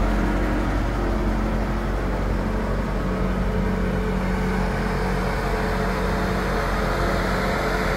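1993 Chevrolet Corvette's V8 engine idling steadily, a low even rumble.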